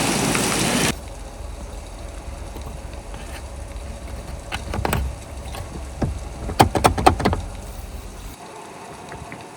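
Blizzard wind rushing over the microphone for about a second, cutting off suddenly. Then, inside the small camper, a low rumble with a few sharp clicks and clunks about five seconds in and a quick cluster of louder ones around six to seven seconds: door latches and locks being fastened.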